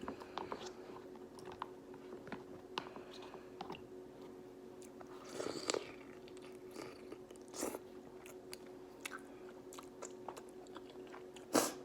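Close-up mouth sounds of eating seafood-boil food: wet chewing and biting with scattered small clicks and smacks, a couple of louder bites about five and a half and seven and a half seconds in.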